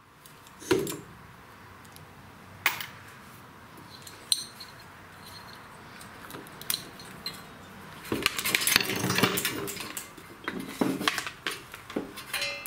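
Small metal engine parts clinking and rattling as they are handled by hand, while the ignition coil is taken off the engine. There are a few sharp clacks at first, then a busier patch of rattling from about eight seconds in.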